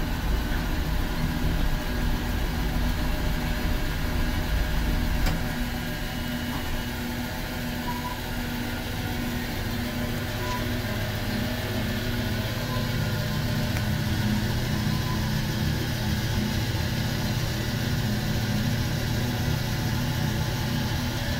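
Slab-Zilla log sawmill machinery running steadily, heard from inside the operator's cab. A heavier low rumble eases about five seconds in, leaving a steady mechanical hum.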